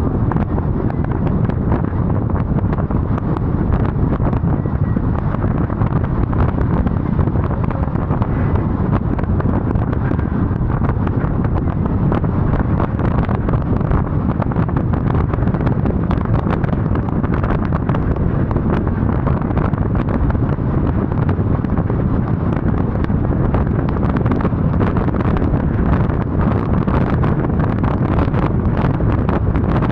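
Wind buffeting the microphone: a dense, even low rumble.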